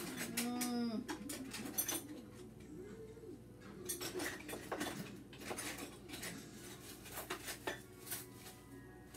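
Hand-held can opener clicking and clinking against a metal food can in irregular bursts as it is worked around the rim; the opener works poorly.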